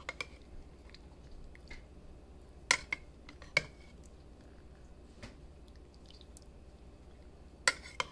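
Metal spoon clinking against a ceramic bowl while scooping through the broth and meat: a few sharp clinks, each with a short ring, loudest about a third of the way in and again near the end.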